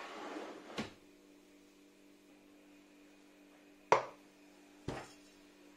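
Metal baking pan scraping as it is slid off a wooden cutting board, ending in a click. About four seconds in comes a sharp knock, with a smaller one about a second later, from the pan going into the oven and the oven door being shut.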